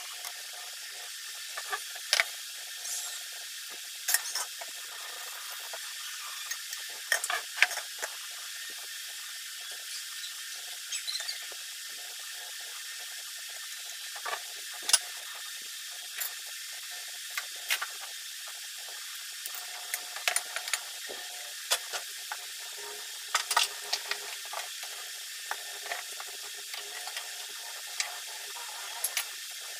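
Scattered sharp clinks and taps of plates, bowls, a knife and spoons being handled on a table, over a steady hiss.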